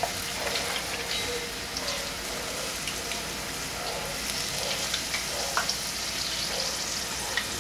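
Hot canola oil sizzling steadily around the garlic, onion and thyme used to flavour it, as they are scooped out with a slotted spoon, with a few light clicks along the way.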